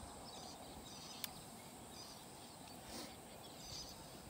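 Faint outdoor ambience: scattered bird calls over a steady high insect drone, with one sharp click about a second in.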